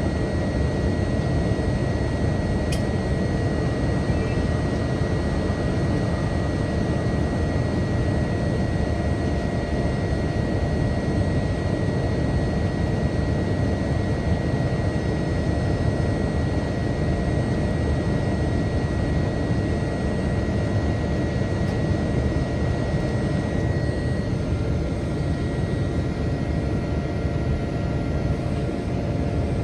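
Boeing 787-10 jet engines running steadily: a constant rushing noise with a thin high whine over it, the whine shifting slightly about three-quarters of the way through.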